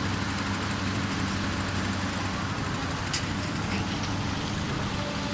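Komatsu hydraulic excavator's diesel engine running steadily, with a brief click about three seconds in.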